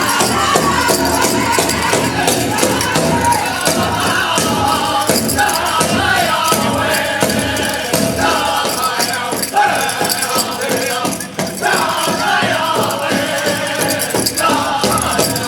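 Background music with a steady, even beat and shaken percussion.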